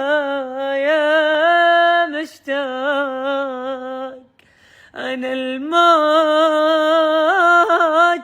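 A man singing unaccompanied in Iraqi Arabic style, with long held notes and wavering ornaments. There is a short break a little after two seconds and a brief pause of under a second about four seconds in.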